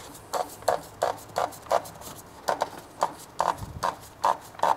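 Rapid, evenly spaced clicks, about three a second, as the oil filter housing cap is spun down its threads by hand.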